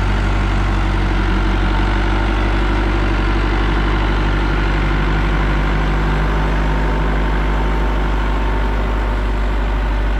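Ursus 5314 tractor's diesel engine running steadily close by as the tractor slowly pulls a trailer loaded with hay bales.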